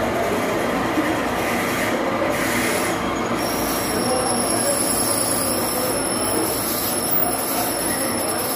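Metal lathe running with its cutting tool working a fountain-nozzle workpiece, the tool scraping on the metal. A steady high squeal joins in about three seconds in and holds.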